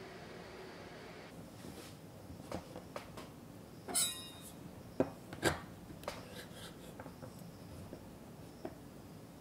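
Fingers handling a dried vanilla bean on a wooden cutting board, rubbing and pressing it flat. Soft rubbing with scattered small taps and a short scrape, the two sharpest taps about five seconds in.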